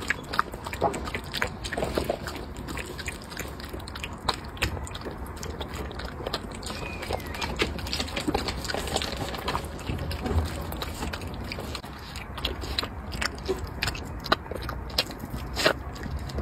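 A small dog eating wet, chopped food from a ceramic bowl: continuous irregular chewing and licking, with many small clicks of teeth and tongue.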